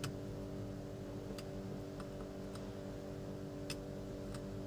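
Faint, irregular light clicks of metal tweezer tips touching the LED chips on an aluminium LED board, about six in a few seconds, as each LED in the series string is shorted in turn to find the dead one. A steady low hum runs underneath.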